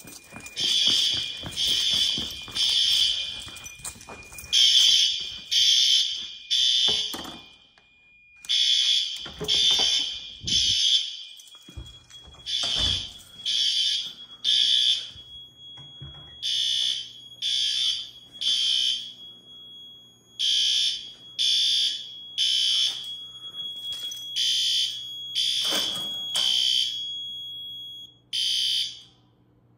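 System Sensor L-series fire alarm horns sounding the temporal-3 evacuation pattern: three blasts, a pause, repeating about every four seconds. The horns stop near the end as the alarm signals are silenced at the fire alarm panel.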